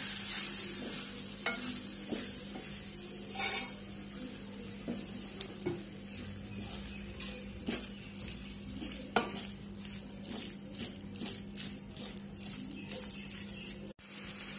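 Beef tripe (botti) frying and sizzling in masala in an aluminium pan while a wooden spatula stirs it, with scattered scrapes and light knocks of the spatula against the pan.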